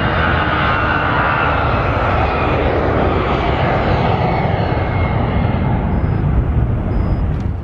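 Airbus A320-214's twin CFM56 turbofan jet engines at takeoff thrust on departure: a loud, steady roar with a high whine that slowly falls in pitch as the aircraft moves away.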